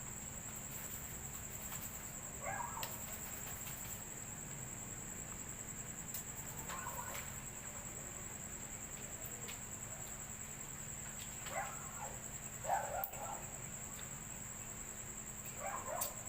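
Crickets chirring in one steady high-pitched trill throughout. A few sharp clicks and several brief mid-pitched sounds come and go over it, likely from eating.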